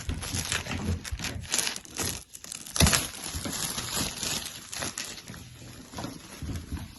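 Wrapping being torn and crumpled off a MacBook Air box: a continuous crinkling crackle of many small snaps, with a louder rip about three seconds in.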